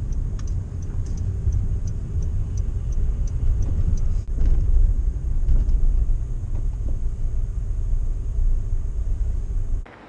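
Honda N-VAN kei van driving slowly, heard from inside the cabin as a steady low rumble. Faint regular ticks run through the first few seconds. The sound cuts off abruptly near the end.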